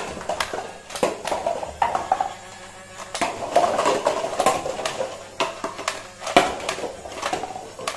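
Toy foam-dart blaster firing a string of shots, with sharp clacks as the darts hit stacked paper cups and the cups tumble and clatter onto the wooden floor.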